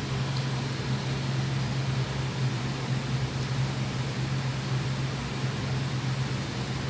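Steady low machine hum under an even hiss, unchanging, like a running fan or air-conditioning unit in a small room.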